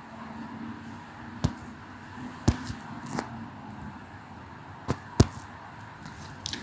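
A few short, sharp clicks, four of them clearest, over faint steady room noise.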